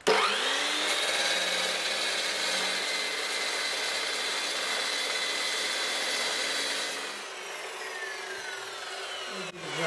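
Electric metal-cutting chop saw starting up and cutting through a solid square steel bar with a steady whine, then winding down with a falling whine over the last couple of seconds once the cut is finished.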